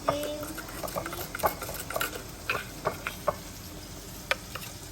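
Spoon scraping and tapping through ground coffee in a plastic blender jar, in irregular clicks and scrapes.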